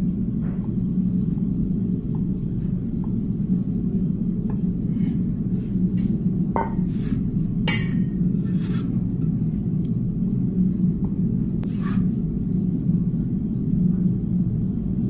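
Cleaver slicing soft tofu on a wooden chopping block, the blade tapping the board now and then, with a few sharper clinks of the knife and tofu against a stainless-steel bowl in the middle stretch. A steady low rumble runs underneath.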